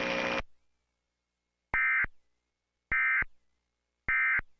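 EAS end-of-message data bursts: three short, identical bursts of warbling two-tone digital SAME data, about a second apart, marking the end of the tornado warning broadcast. A buzzy sound cuts off just under half a second in, before the first burst.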